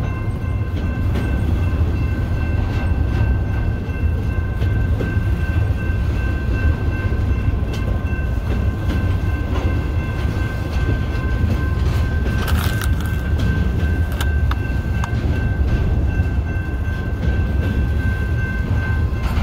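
Cars of an intermodal container train rolling by on steel wheels: a steady heavy rumble with a continuous high squeal over it, and a few sharp clanks about twelve seconds in.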